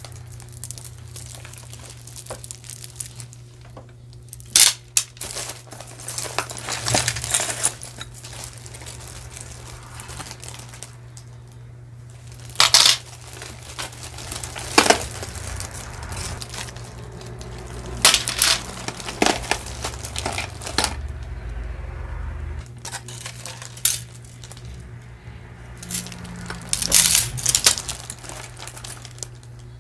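Pieces of metal costume jewelry clinking and rattling as they are handled and dropped into a box. Irregular sharp clinks come every few seconds between quieter handling noise.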